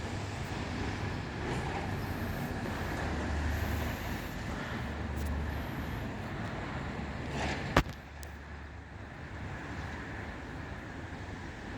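Outdoor background noise with a steady low rumble of road traffic, and a single sharp knock about eight seconds in.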